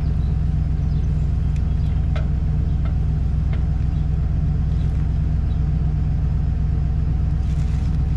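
Ford pickup truck's engine idling, a steady low hum that does not change. A few faint clicks are heard over it.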